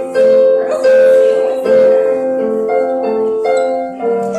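Music: a keyboard playing a melody of held notes.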